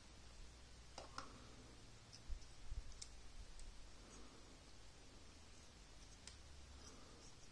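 Faint clicks and light taps of an aluminium SSD enclosure shell and its circuit board being handled, with two dull bumps, the loudest sounds, about two to three seconds in.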